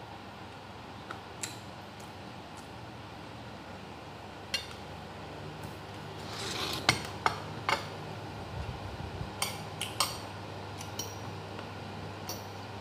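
Fork and spoon clinking and scraping against a plate of fried rice while eating: scattered sharp clinks, with a short scrape and the loudest run of clinks about seven seconds in. A steady low hum sits underneath.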